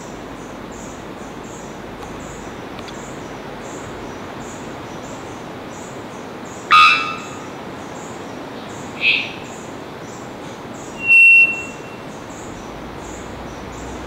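Male three-wattled bellbird calling: a loud, abrupt 'bonk' about seven seconds in, a shorter note about two seconds later, then a loud, pure, high whistle held for about half a second. Under it runs a steady hiss with a faint high pulsing, about two a second.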